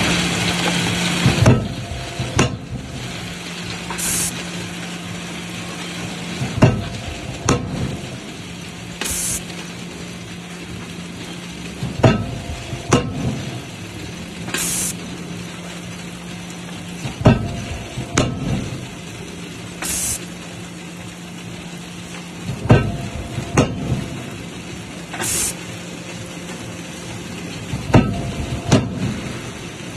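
Hook-forging machinery working in a steady cycle about every five seconds: a heavy metal strike and a few lighter knocks, then a short high hiss, over a constant machine hum. Six cycles in all.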